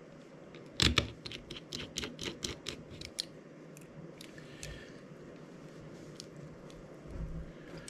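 Precision screwdriver working micro screws into the heatsink plate of an M.2-to-PCIe adapter card: a sharp click about a second in, then a quick run of light clicks, about five a second, for a couple of seconds, and scattered ticks after. A soft low bump comes near the end.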